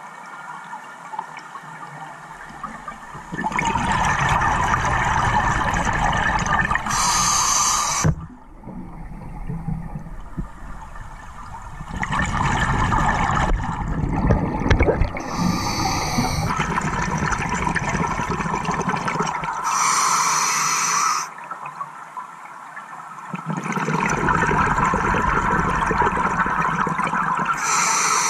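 Scuba diver breathing through a regulator: rushing, bubbling exhalations surge for several seconds at a time, separated by quieter spells, in a slow breathing rhythm.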